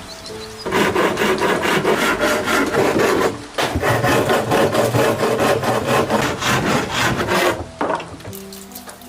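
Wood being worked with a hand tool in rapid back-and-forth strokes, about five to six a second, in two long runs with a brief pause about three and a half seconds in. Quiet background music plays underneath.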